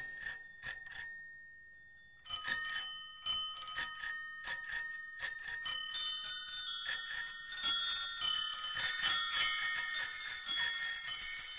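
A bell struck four times in quick succession, its high ringing dying away. About two seconds in, a stream of high tinkling chime notes begins and grows denser.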